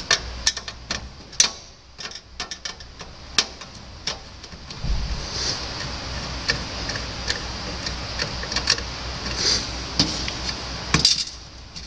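Irregular small clicks and taps of a screwdriver backing out the screws that hold a computer's CD drive, with the loose screws being set down.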